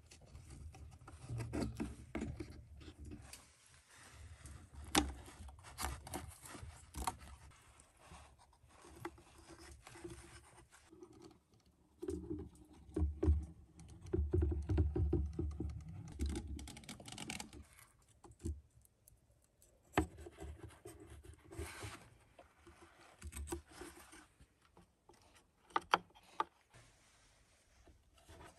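Close-up handwork sounds of fitting thin wooden strips around a window pane: irregular taps, clicks and scrapes of wood against the frame and glass. Around the middle a caulking gun lays sealant along the glass edge, with a denser stretch of low rattly handling noise.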